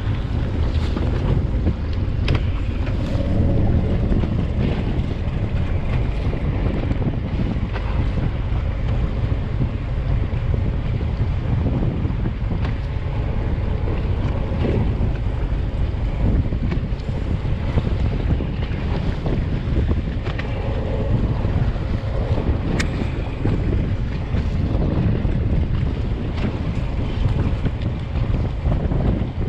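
Wind buffeting the microphone over a steady low rumble of a fishing boat at sea, with the wash of waves.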